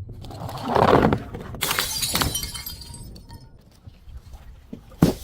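A glass bottle being crushed. A loud crunch comes about a second in, then the glass shatters suddenly with high tinkling shards that fade over a couple of seconds, and a sharp knock comes near the end.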